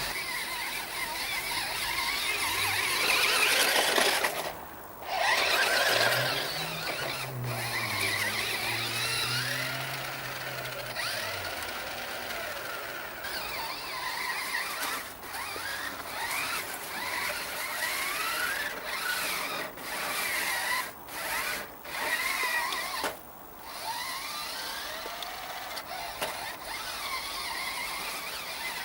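Electric motor of a Nikko Vaporizr RC car whining, its pitch rising and falling again and again as it speeds up and slows, with a few brief cut-outs.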